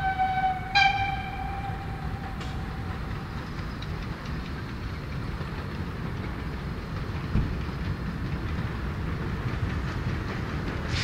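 Narrow-gauge steam locomotive whistling as it nears a level crossing. The whistle sounds at the start, swells louder about a second in and fades out by about three seconds. Then the locomotive works steadily along the line with a low rumble.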